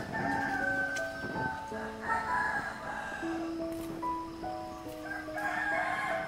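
Background music of slow, held melodic notes that change pitch in steps.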